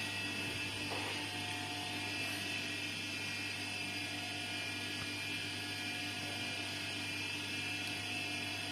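Steady electrical hum and whir of running equipment, with several constant tones over a low hum and no change in level.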